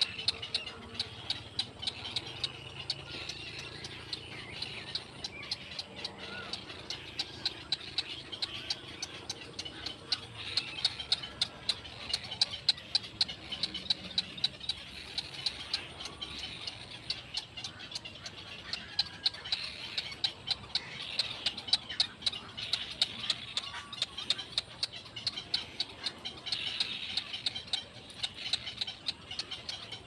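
Black-crowned night heron nestlings begging: a rapid, steady ticking chatter of sharp clicks, with a few faint short squeaky calls.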